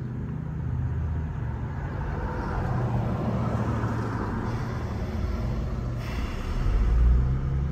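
Steady low hum of a car's engine idling, heard inside the cabin, with a faint even hiss over it. The hum grows louder briefly near the end.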